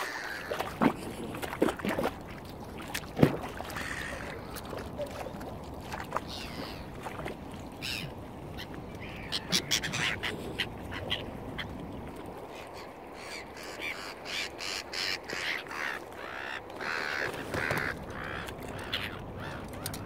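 Waterfowl calling over and over in short calls, most densely in the second half, with a few sharp knocks in the first few seconds.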